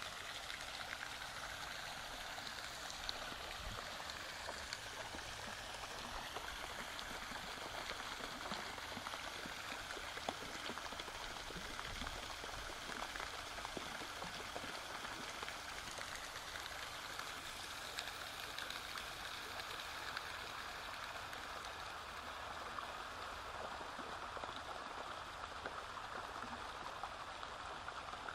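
Running water, a steady even rush with fine splashing crackle throughout.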